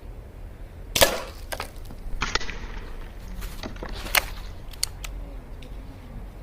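Snowpeak GR800S gas piston air rifle firing once with a sharp crack about a second in, followed by a string of lighter clicks and knocks, one of them sharper a little after halfway through.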